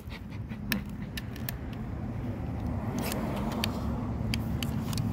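Small electric motor and gears of an Adventure Force toy RC car running as it drives on concrete: a steady hum that slowly grows louder, with scattered sharp ticks.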